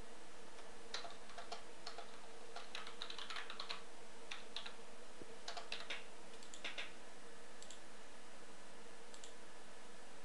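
Typing on a computer keyboard: a quick run of keystrokes over about six seconds, with letters deleted and retyped. Two lone clicks follow later on.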